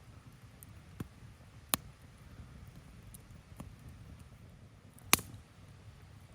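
Wood bonfire crackling, with a few sharp pops from the burning wood over a low steady rumble; the loudest pop comes about five seconds in.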